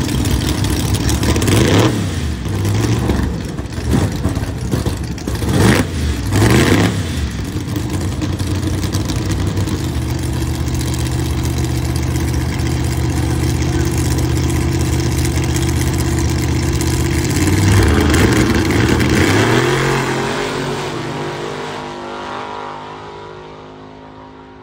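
Two drag race cars at the starting line: the engines are revved in sharp up-and-down blips, then held at steady revs. About eighteen seconds in they launch, the engine pitch climbs, and the sound fades steadily as the cars run off down the strip.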